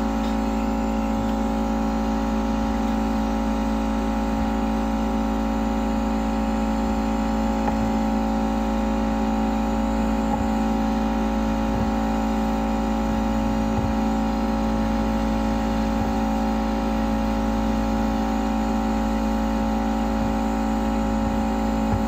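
Hot air gun running steadily: a constant hum with several steady tones over an even hiss.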